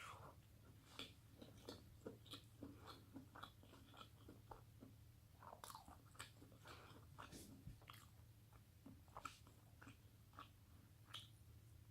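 A person chewing food with the mouth close to the microphone: faint, irregular small clicks and smacks of eating.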